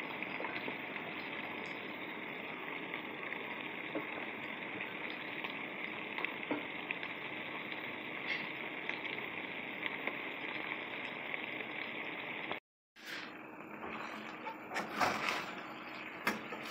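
Goat meat and pepper strips sizzling in a metal cooking pot, a steady hiss. After a brief cut near the end, a spoon knocks and scrapes against the pot as the stew is stirred.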